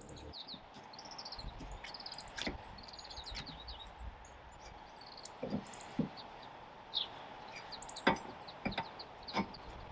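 Scattered knocks and clinks of hand tools working on a car wheel during a tyre change, several sharp ones in the second half. Small birds chirp in short repeated series throughout.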